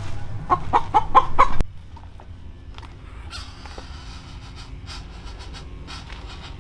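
Chicken clucking in a quick series, about four or five clucks a second, cutting off suddenly about a second and a half in; after that it is quieter, with scattered light clicks.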